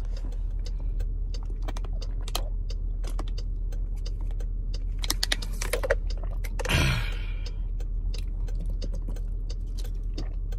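Scattered clicks and crackles of a plastic water bottle being handled and drunk from, with a short breathy sound about seven seconds in, over a steady low hum.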